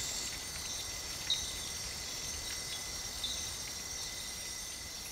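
Steady high-pitched chorus of night insects trilling together, with two short chirps about one and three seconds in.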